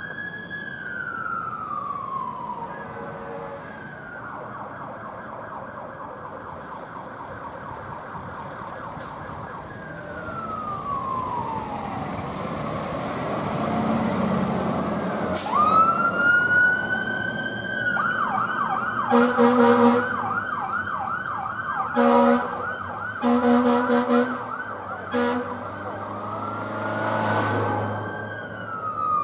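Fire engine's electronic siren, moving between a slow rising-and-falling wail and a fast yelp. Over the second half, four short air horn blasts sound on top of the siren.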